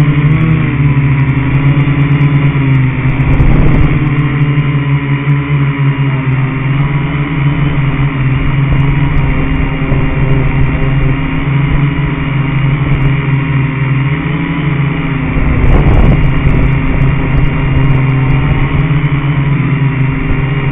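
Small quadcopter's electric motors and propellers buzzing steadily as heard from the onboard camera, with two brief louder surges, one a few seconds in and one near the end.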